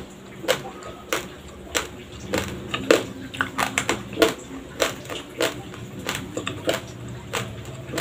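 Raw white Dinurado rice grains crunching between teeth as a person chews right at the microphone: sharp, irregular cracks, roughly two a second, with a quick cluster just after the midpoint.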